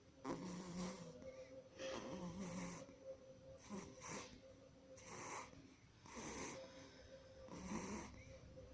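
A small sleeper snoring: a raspy snore on each breath, about six in a row, roughly one every second to second and a half.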